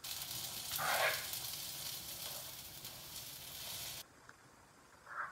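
Pancake batter sizzling on a hot buttered griddle: a steady hiss that swells briefly about a second in and cuts off abruptly about four seconds in.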